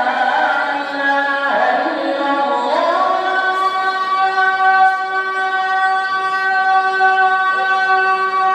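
Islamic call to prayer (adhan) sung by a muezzin. An ornamented, wavering vocal line runs for about three seconds, then settles into one long held note.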